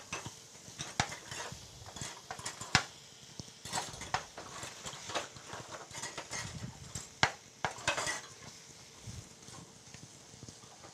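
A cooking utensil knocking and scraping in a frying pan as browning sausage meat is mashed up and broken apart, with irregular sharp clicks that thin out near the end.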